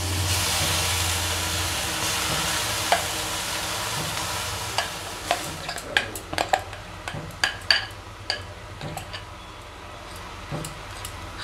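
Milk cream sizzling as it is poured into a hot aluminium kadai, the hiss loudest at first and slowly fading. From about halfway, scattered sharp clicks and taps.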